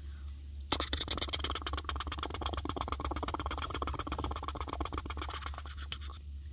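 Rapid, scratchy scrubbing of a toothbrush, starting just under a second in and stopping near the end.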